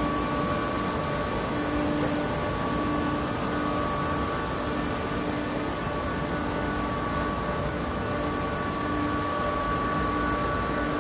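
Steady mechanical hum with a wash of city noise, carrying a few steady tones, one low tone pulsing on and off about once a second.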